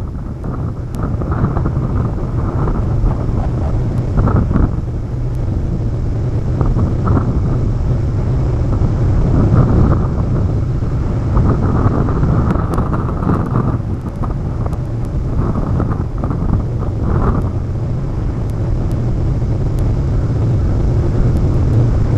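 Wind rumbling and buffeting an outdoor microphone, steady with gusts rising and falling.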